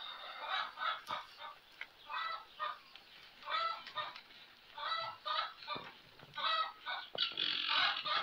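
Farmyard poultry calling in short, repeated bursts, a cluster every second or so.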